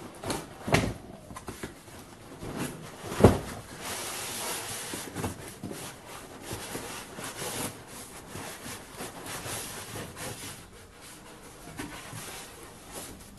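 Cardboard cartons scraping and rubbing against each other as an inner box is slid out of an outer shipping box, with two thuds about one and three seconds in.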